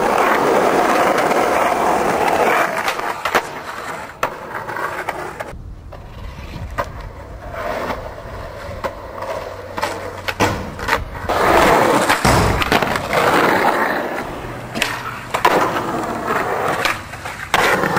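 Skateboard wheels rolling over rough asphalt, swelling and fading as the board passes, with several sharp clacks of the board hitting the ground.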